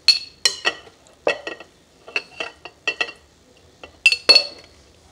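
Metal spoon clinking on glass while wet chopped sofrito is spooned from a glass bowl into a glass jar. About a dozen irregular ringing clinks, the loudest pair about four seconds in.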